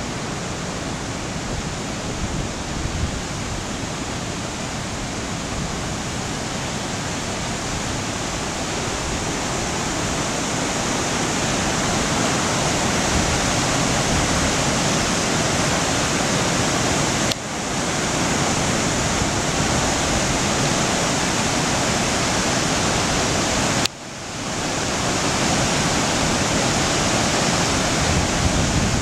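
Swollen creek in flood, a steady rush of fast, churning water that grows louder over the first dozen seconds, with two momentary dips partway through.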